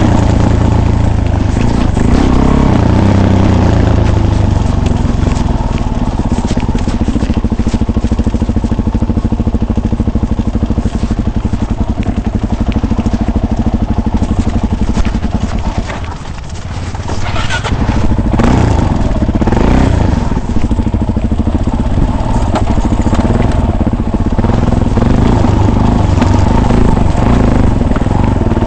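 Off-road vehicle engine running under way. It eases off briefly about sixteen seconds in, then picks up again.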